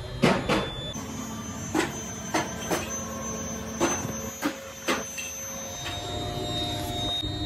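A series of about eight sharp metallic knocks and clinks in the first five seconds, some ringing briefly, over a steady low machinery hum.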